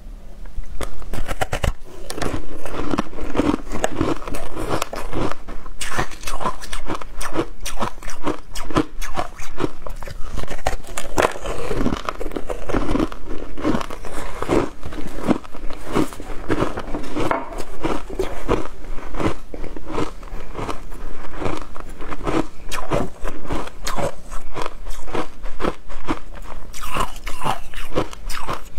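Someone biting and chewing a block of ice coated in matcha powder, many sharp icy crunches in quick succession.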